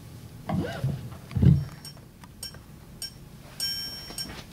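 A few knocks and clicks, the loudest a dull thump about a second and a half in, then a short bright ringing chime-like tone of several pitches near the end.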